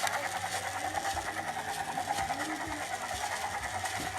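Toy helicopter's rotor sound, a fast, steady whirring chatter.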